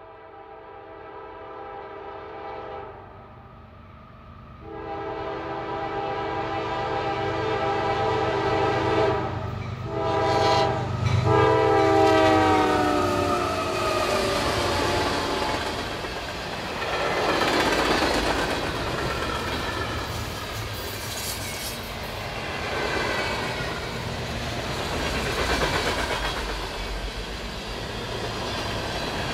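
CSX freight train led by GE ES40DC and CW44AH diesel locomotives approaching and passing, the air horn sounding long, long, short, long, the grade-crossing signal, over the engines' rumble. The horn drops in pitch as the locomotives pass about twelve seconds in, and the freight cars then roll by with wheels clacking.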